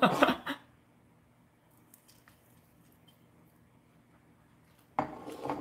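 Close-up mouth sounds of a man chewing fried chicken: after a quiet stretch, an irregular run of crunchy chewing noises starts about five seconds in.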